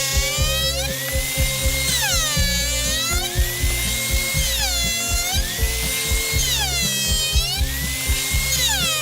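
Background music with a steady beat, over a high-pitched power tool whine that dips in pitch and climbs back about every two and a half seconds.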